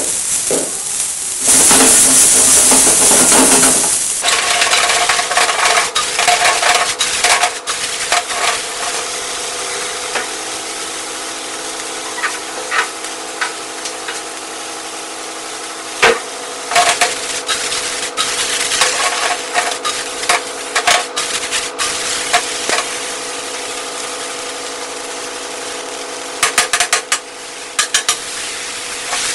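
Vegetable pieces sizzling in a hot steel pan, with a loud burst of hissing about two seconds in. Throughout there are irregular clicks and knocks of the vegetables being stirred and tossed in the pan, with a cluster of them near the end.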